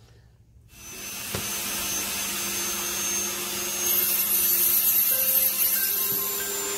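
Handheld electric rotary tool switches on about a second in and runs with a steady high whine. From about four seconds a grinding hiss is added as it grinds a small steel part, taking off the burrs left from tapping its edge so the part will fit.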